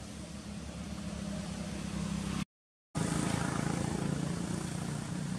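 Steady low hum of a motor vehicle engine running. The sound cuts out for about half a second a little over two seconds in, then comes back louder.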